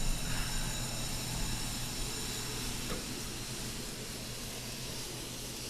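Farm machinery running steadily: a low hum under an even, fan-like hiss with faint high whining tones.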